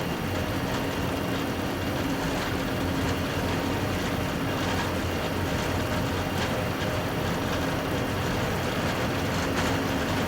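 Airbus A380 on its takeoff roll, heard from inside the cockpit: a steady, even rumble of the engines at takeoff thrust and the wheels on the runway as the jet accelerates past 100 knots towards V1. A few light knocks come through the rumble.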